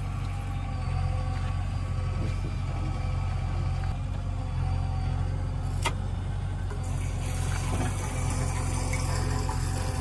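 Diesel engine idling steadily, with a single sharp click about six seconds in. About seven seconds in a steady hiss joins it as liquid starts running through the hose into the tank.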